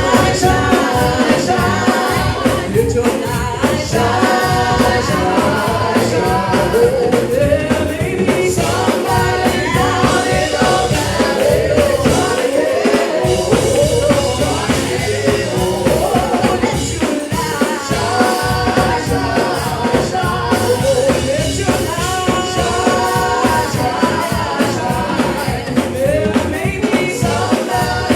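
Live gospel praise-and-worship music: a band with drums plays a steady beat under a lead singer and backing singers.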